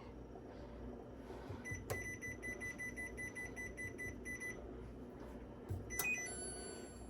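Digital air fryer beeping: a click, then a quick run of about ten short, evenly spaced high beeps, followed near the end by another click and a single short beep.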